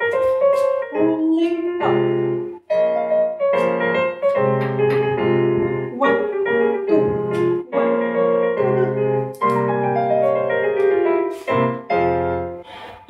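Solo piano playing ballet class accompaniment: chords and a melody struck in an even pulse, about one beat a second.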